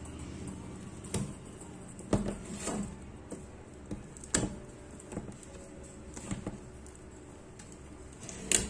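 Irregular sharp clicks and scrapes of a hand tool prying at the edge of a flat monitor panel during disassembly. The loudest click comes near the end.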